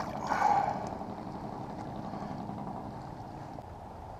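Splash of a released smallmouth bass hitting the water beside the kayak, within the first second, then a steady low rush of background noise that fades slightly.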